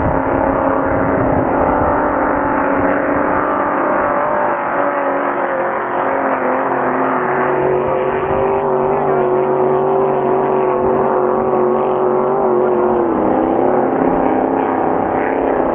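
Vintage racing hydroplanes running flat out, several engine notes overlapping and holding steady, with one dropping in pitch about thirteen seconds in.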